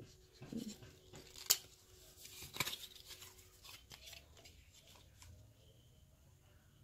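Small cardboard product box being handled and worked open by hand: scattered crackling and tearing of thin card, with a sharp click about one and a half seconds in, the loudest sound, and a second burst of crackle a second later.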